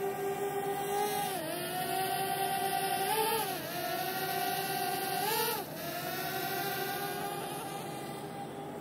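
DJI Mavic Air quadcopter's propellers whining in flight. The pitch dips and rises several times as the throttle changes, and the whine grows fainter toward the end.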